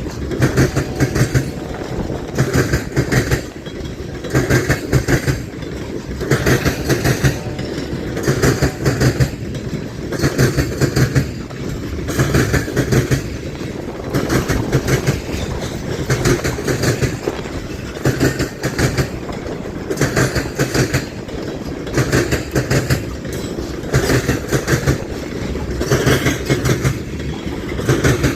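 A CSX freight train's cars rolling past at speed. Their wheels clack over the rail joints in a burst about every second or so over a steady rumble.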